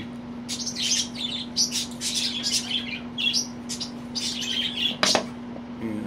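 Budgie chirping and chattering in quick, irregular short calls, with one louder, sharper sound about five seconds in.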